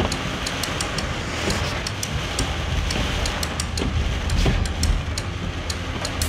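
Heavy rain hitting a moving car's windshield and roof, heard from inside the cabin: a steady hiss over a low road rumble, with irregular sharp ticks of drops striking the glass several times a second.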